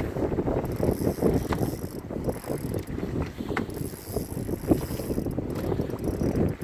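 Fishing reel being wound in with a red sea bream on the line: a continuous irregular mechanical rattle of small clicks, with wind buffeting the microphone.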